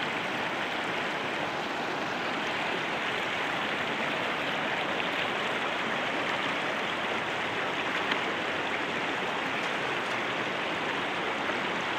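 Flowing river water rushing with a steady, even hiss.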